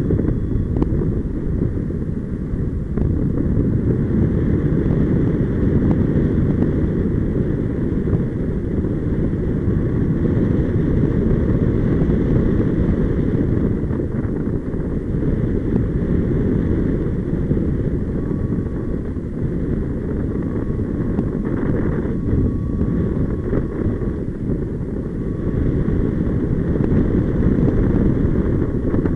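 Steady rumble of flight wind buffeting the microphone of a paraglider pilot's harness-mounted camera.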